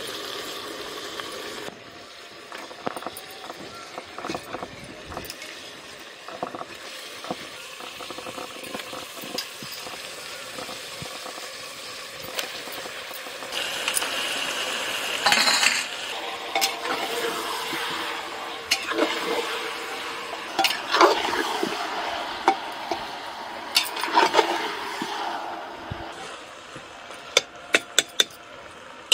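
Raw mutton pieces frying in hot oil in an aluminium pressure cooker, being browned: a steady sizzle with a metal spatula scraping and clinking against the pot as it stirs. Near the end, a quick run of sharp taps as the spatula is knocked against the rim.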